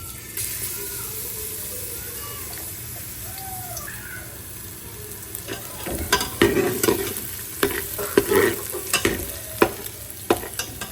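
Garlic paste sizzling in hot oil in a pressure cooker. From about six seconds in, a spoon stirs it, scraping and clattering against the metal pot in quick bursts.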